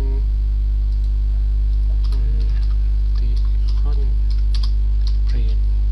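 Loud, steady electrical mains hum on the recording, with faint computer keyboard clicks of typing.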